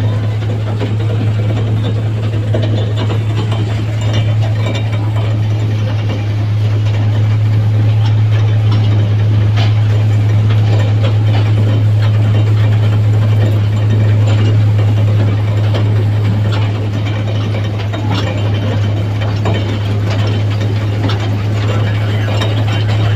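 Ride on a small toy train: a steady low engine drone with rattling and small knocks from the carriages, and no break or change throughout.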